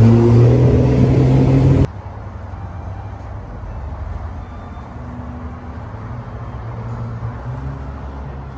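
Car engine idling, heard from inside the parked car: a steady low hum. About two seconds in it drops abruptly to a quieter steady hum.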